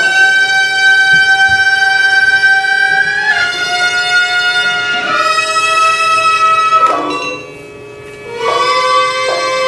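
Tang court banquet music played on a wind instrument: a slow melody of long held notes, each lasting a few seconds, over a steady drone. Near the end the melody briefly drops away before a lower note begins.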